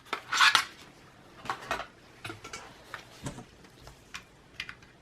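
A 2.5-inch Samsung 840 Pro SSD being handled and set into a laptop's empty drive bay without a caddy: a short rustle about half a second in, then scattered light clicks and taps as the loose drive shifts against the chassis.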